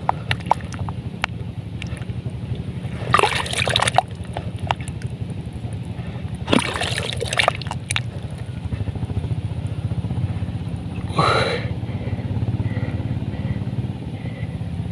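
Shallow muddy water sloshing and splashing in two short bursts, about three and seven seconds in, where a hooked eel is pulling on the line inside its burrow. A steady low engine hum runs underneath.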